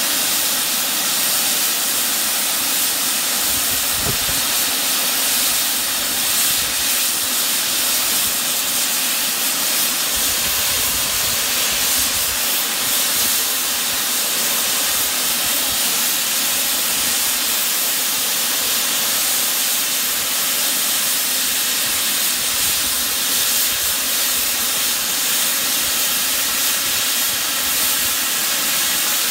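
Steady hiss of steam escaping from standing 2-6-0 steam locomotive No. 89.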